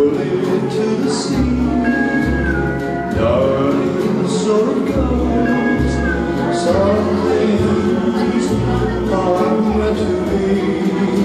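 Dance music with a singing voice over a steady bass line.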